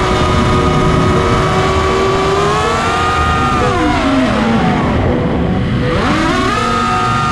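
FPV quadcopter motors (Diatone Roma L5) whining in a high, many-toned drone at steady throttle. About three and a half seconds in the pitch slides down as the throttle comes off, then near the six-second mark it shoots back up as the throttle is punched again.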